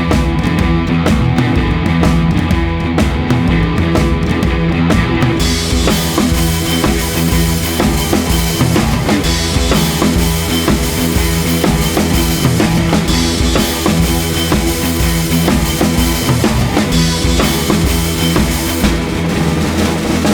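Rock music with a drum kit keeping a steady beat; the cymbals come in about five seconds in.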